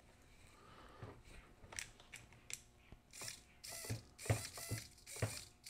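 A 9-gram analog micro servo with plastic gears whirs in about five or six short bursts, each under half a second, in the second half, with light knocks among them. Handling clicks come before it.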